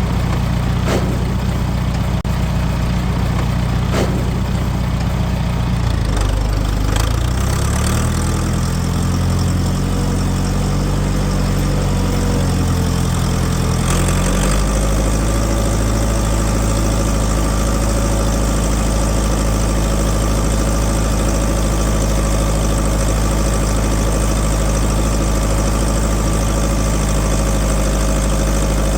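Engine of a piece of farm machinery running steadily. About eight seconds in its speed sags, then it picks back up and holds steady again from about fourteen seconds.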